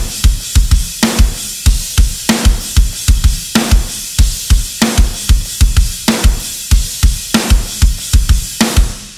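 Programmed heavy metal drum track played on GGD Invasion sampled drums, isolated without other instruments: quick clusters of kick drum under a slow, heavy snare backbeat about every second and a bit, with cymbals over the top. The beat eases off briefly near the end.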